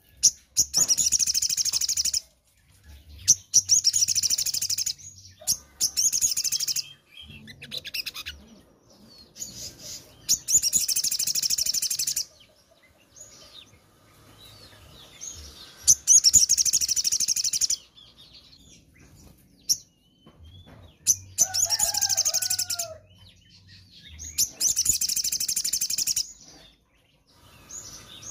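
Caged sogon songbird singing: loud bursts of fast, high-pitched chattering song, each a second or two long, repeated every few seconds with short pauses between.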